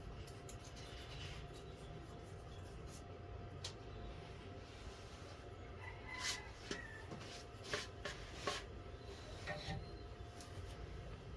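Quiet hand work on a wooden instrument: rubbing and scraping with a few small clicks and knocks, more frequent in the second half, over a steady low hum.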